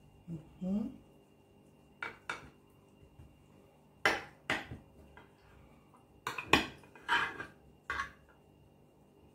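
A spoon clinking and scraping against a ceramic baking dish while sour cream is spread over a fish. There are about eight sharp, irregular clinks with quiet gaps between them.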